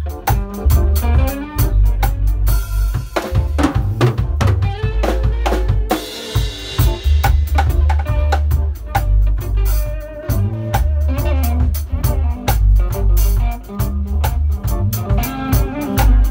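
A rock-style band playing live: a drum kit driving a busy beat with kick and snare, under an electric bass line and electric guitar. Cymbal crashes ring out about three seconds in and again around six seconds.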